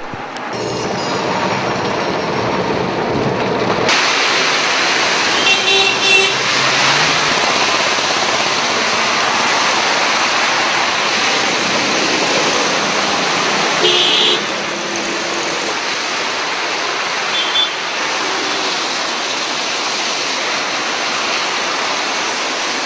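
Heavy rain and traffic on a wet city street: a steady hiss of rain and tyre spray that gets louder about four seconds in. Vehicle horns toot briefly about six seconds in, around fourteen seconds and again near seventeen seconds.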